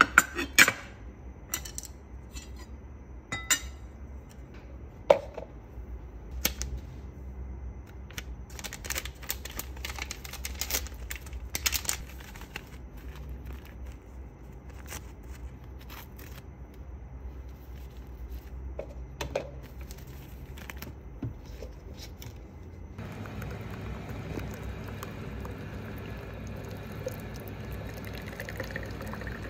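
Plates and cutlery clinking a few times, then a paper drip-coffee bag being torn open and crinkled. About 23 seconds in, a countertop water dispenser starts pouring a steady stream of water into the drip bag in a cup.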